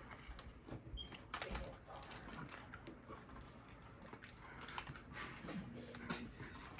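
Faint, scattered clicks and light rustling, like small objects being handled.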